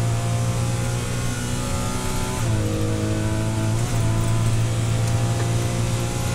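Porsche Cayman 981's naturally aspirated flat-six pulling under hard acceleration, heard from inside the race car's cockpit. About two and a half seconds in, the engine note drops at an upshift into fifth gear, then carries on pulling.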